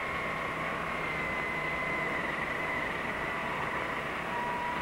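Machinery running steadily: a hissing hum with a whine on two pitches, the lower one dipping slightly near the end.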